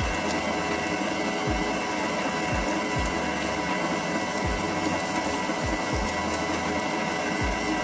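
Electric stand mixer running at raised speed with a dough hook, kneading bread dough. A steady motor whine, with irregular low thumps every second or so.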